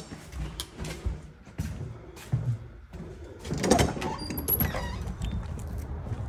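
Footsteps and small knocks of someone walking, then a metal exit door's push-bar latch clunking and the door swinging open about three and a half seconds in.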